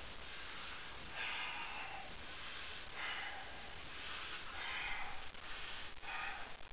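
A powerlifter's forceful breaths, psyching up before a deadlift attempt: four sharp, noisy breaths about a second and a half apart.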